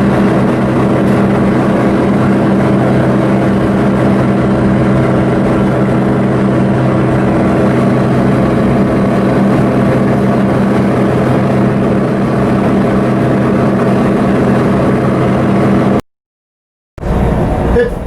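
Coastal cargo ship's diesel engine running steadily, a low, even drone with a constant hum; it cuts off abruptly about sixteen seconds in.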